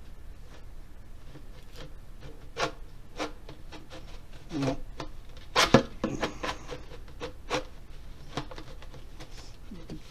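Hard plastic telescoping artwork storage tube being twisted and pulled out to its full length: plastic sections sliding against each other with irregular clicks and knocks, the loudest a little past halfway.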